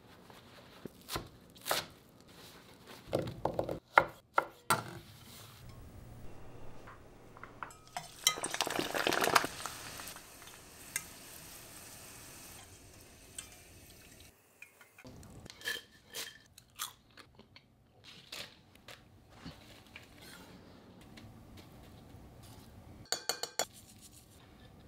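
Food-prep sounds: scattered sharp knocks and clicks of hands, utensils and a glass bowl. About a third of the way in, Brussels sprouts sizzle in a pot of hot oil for a couple of seconds, and near the end there is a quick run of taps.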